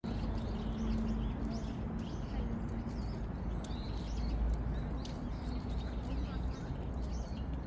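Birds chirping over a steady low rumble, with a faint murmur of distant voices.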